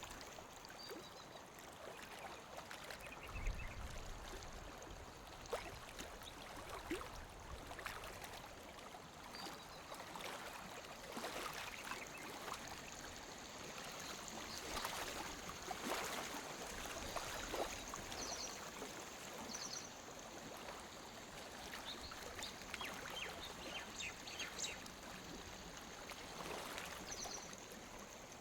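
Small waves lapping against a lake shore: a soft steady wash with irregular little splashes and slaps of water. There is a brief low thud about three and a half seconds in.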